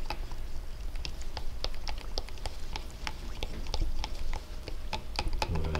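Paint being stirred in a small mixing cup: light, irregular clicks and taps, a few a second, as the stirrer knocks against the cup, over a low steady hum.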